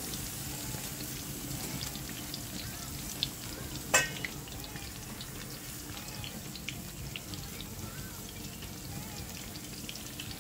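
Steady sizzling and crackling of food cooking in hot fat: a raw steak just laid on a hot gas-grill grate, with battered asparagus deep-frying in oil beside it. One sharp click about four seconds in.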